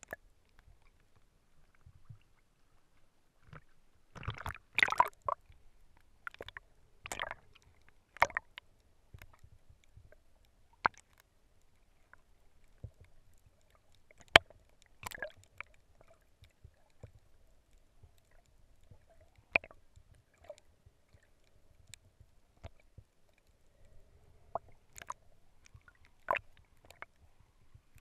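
Underwater sound through a GoPro's waterproof housing: scattered sharp clicks and knocks with short bursts of water sloshing, busiest a few seconds in, over a faint steady hum.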